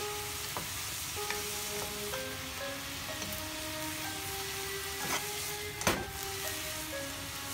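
Green papaya strips and pork sizzling in a frying pan as they are stir-fried with a wooden spatula, with two sharp knocks of the spatula against the pan about five and six seconds in, the second the loudest. Soft plucked background music plays over it.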